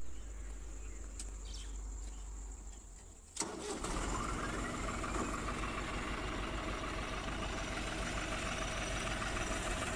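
Diesel tractor engine running: a faint low rumble at first, then louder and fuller from about three and a half seconds in, and running steadily after that.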